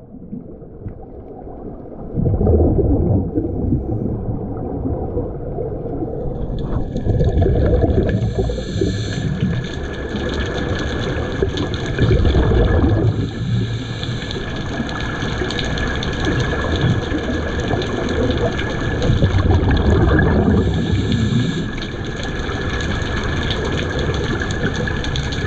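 Underwater: air bubbles venting from the scooters' air-fed diving helmets, rushing and gurgling in repeated surges. A steady high whine joins in about six seconds in.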